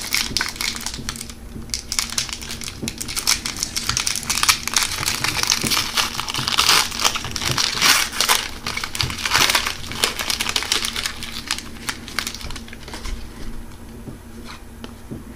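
Foil trading-card pack wrapper crinkling and tearing as it is ripped open and the cards are pulled out. It makes a dense run of crackles, heaviest around the middle, that dies down near the end.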